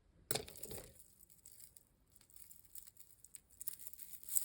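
Small jewelry pieces being handled and sorted: a rustle just under a second in, then scattered light clicks and crinkling, busier near the end.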